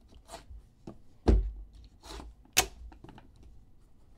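Cardboard box being slit open with a utility knife and handled: a few short scrapes and knocks, the loudest a heavy thump a little over a second in, then a sharp tap a little later.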